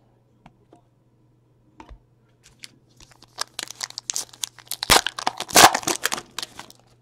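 Foil wrapper of a pack of baseball trading cards torn open and crinkled by hand: a few faint clicks at first, then about three and a half seconds of crackling tearing, loudest near the end.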